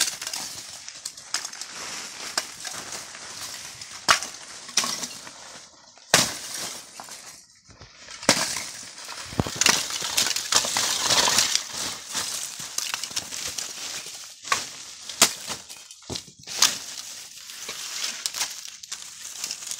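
Lumps of coffee-wood charcoal clinking and rattling against each other as they are picked by hand from a pile and dropped into plastic baskets, in irregular sharp clicks with a denser run of rattling about halfway through.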